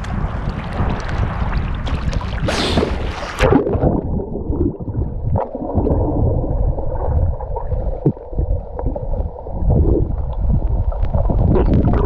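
Sea water splashing as a man swims at the surface, then a loud splash about three and a half seconds in as he and the camera go under. After that the sound turns muffled and low, water rumbling around a submerged camera, with a few small pops.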